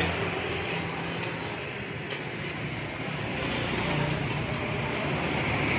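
Steady street traffic noise with a low engine hum.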